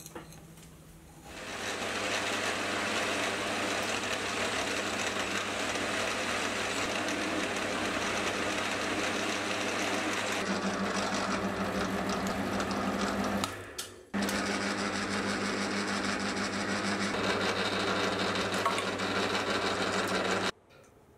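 Metal lathe running and turning a small metal part, a steady machine hum with cutting noise. The pitch of the hum changes about ten seconds in, and the sound breaks off briefly twice.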